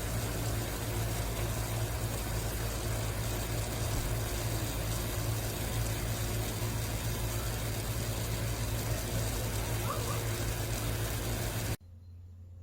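Steady rushing noise with a low, constant hum underneath, which cuts off suddenly near the end.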